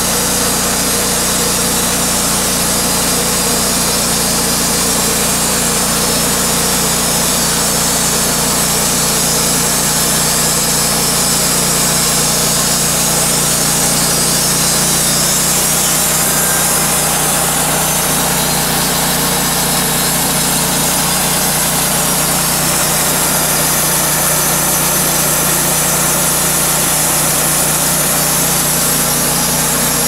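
Wood-Mizer hydraulic band sawmill sawing through a large oak log. The engine runs steadily under load while the band blade hisses through the wood.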